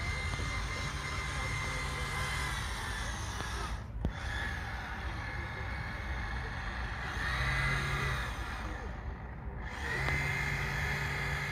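Radio-controlled model boat's electric motor whining steadily, then cutting back a few seconds in, coming back briefly in the middle and returning near the end as the throttle is worked. A single sharp click about four seconds in.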